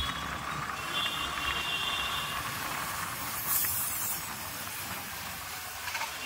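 Street ambience: a steady hiss of distant traffic with faint tones in the background, and a brief louder hiss about three and a half seconds in.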